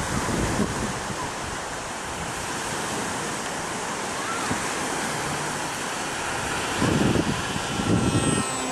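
Surf breaking and wind buffeting the microphone, the buffeting heaviest about seven and eight seconds in. Behind it is the faint whine of the RVJET flying wing's electric motor and pusher propeller, passing close overhead near the end.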